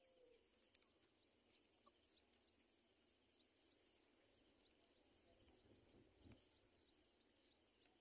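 Near silence, with faint, rapid high-pitched chirps repeating a few times a second and a single sharp click about three-quarters of a second in.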